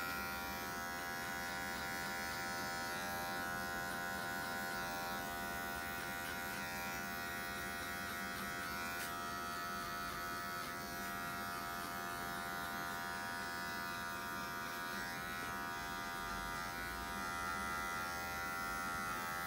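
Electric hair clippers with a guard attached, running with a steady, unbroken buzz while cutting short hair on the sides and back of a head.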